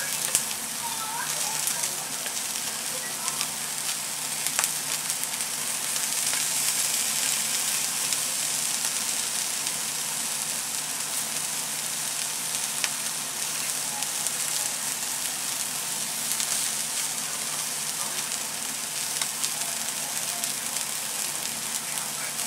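Sweet shrimp heads sizzling steadily as they fry crisp on foil in a pan.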